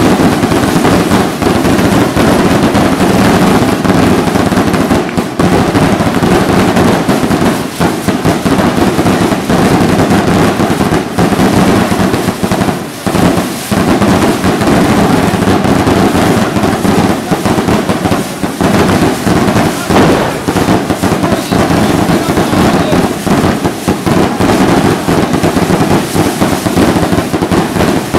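Dense, unbroken barrage of firework rockets going off: countless overlapping bangs and crackles, very loud, thinning briefly about halfway through.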